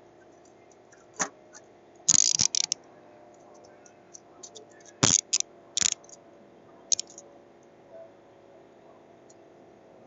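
Smith & Wesson steel handcuffs clicking and clacking as they are handled and closed around the wrists. The metallic clicks come in a few short bursts, the loudest about two, five and six seconds in.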